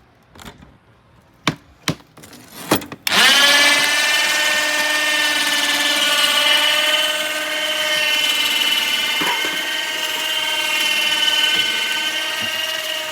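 A few clicks and knocks, then an electric power sander is switched on for sanding a boat's fibreglass bottom. It spins up within a fraction of a second and runs with a steady high whine.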